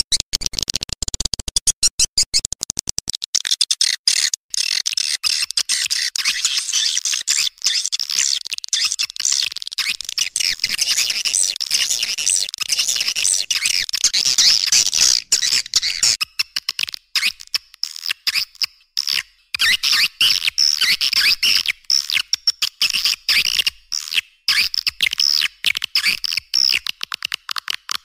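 Recorded swiftlet lure call, the kind played to draw edible-nest swiftlets into a nesting house: a dense run of rapid, high-pitched twittering chirps with no low end. About halfway through it becomes choppier, with more short gaps.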